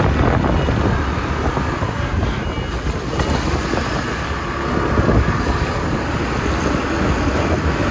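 Wind rushing over the microphone of a moving motorcycle, a steady low rumble with the bike running underneath.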